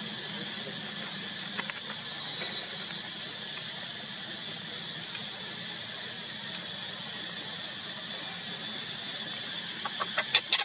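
Steady high drone of insects in the forest, with a few faint clicks. Near the end a baby macaque starts crying in short, repeated squeals that quickly get louder.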